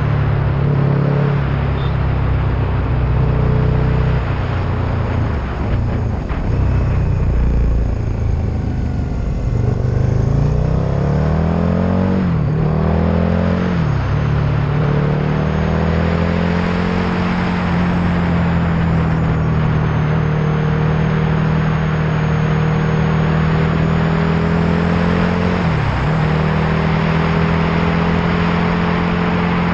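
Vehicle engine running under steady road noise while driving. Its pitch rises as it accelerates, drops sharply twice around 12 and 14 seconds in at gear changes, then holds steady at cruise, with one brief dip near the end.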